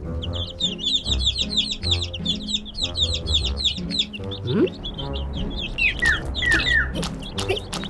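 A dense flurry of quick, high bird chirps over background music with a pulsing bass. From about six seconds in, the chirps thin out to a few separate falling whistles mixed with sharp clicks.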